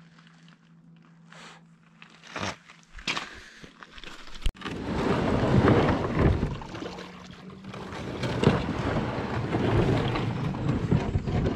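A fishing kayak's hull grinding and scraping over shingle as it is pushed down into the water, picked up loud and rough by the camera mounted on the kayak. It starts suddenly about four and a half seconds in, after a quieter stretch with a faint steady hum.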